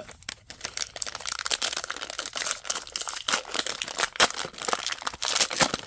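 Crinkling and rustling of a trading-card pack wrapper being opened and handled, a dense run of irregular crackles.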